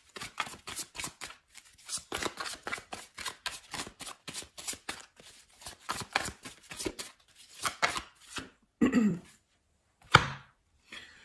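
Tarot cards shuffled by hand: a quick run of light taps and slaps, about five a second, which stops about three-quarters of the way through, followed by two louder handling sounds.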